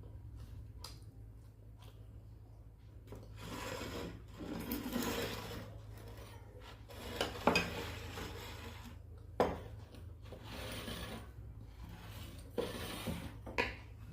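Close-miked chewing and eating: a run of irregular rasping mouth-noise bursts, starting a few seconds in, over a steady low hum.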